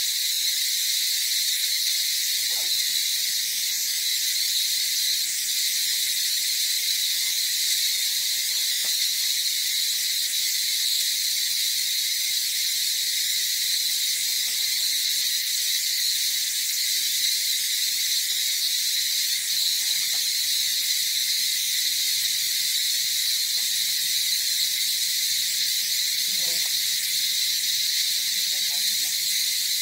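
A chorus of insects buzzing steadily at a high pitch.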